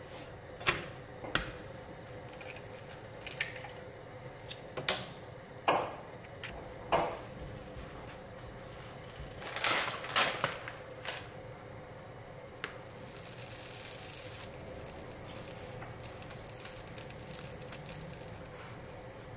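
Dishes and cutlery clinking and knocking during a meal: scattered sharp taps a second or so apart, a quick cluster about halfway through, over a faint steady hum.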